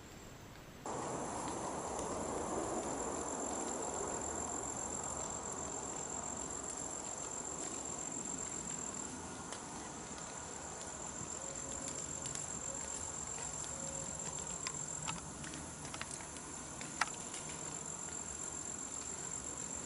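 Insect chorus of the woods: a steady, high-pitched buzz that holds without a break. A few sharp clicks come late on.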